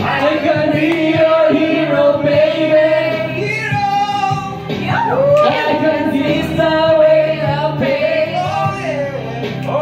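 Man singing karaoke into a corded microphone over a backing track, holding long, wavering notes.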